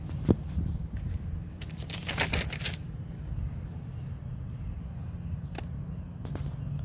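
Stacked sheets of notebook paper being handled: a sharp click near the start, then a burst of crisp paper rustling about two seconds in and a couple of single clicks near the end, over a steady low rumble.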